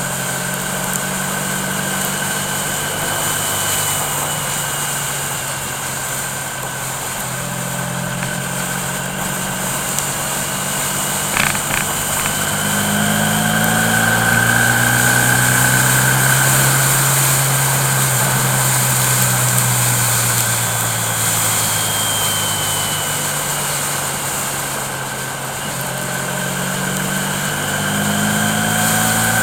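A car engine running steadily under road noise while driving, its pitch slowly rising and falling. There is a brief click about eleven seconds in.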